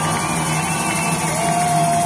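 Live band's last note held and ringing out at the end of a song, over a steady hum and crowd noise. A second, lower held tone comes in about halfway through.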